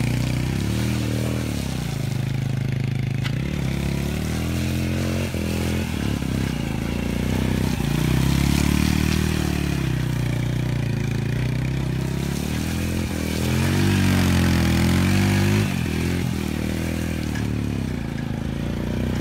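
Small youth ATV engine revving up and down over and over as it turns circles in the mud, its pitch rising and falling every few seconds.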